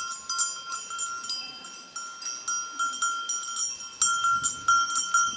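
Metal livestock bells on a grazing flock clanking irregularly, several bells of different pitch ringing at once, the strikes growing louder about four seconds in.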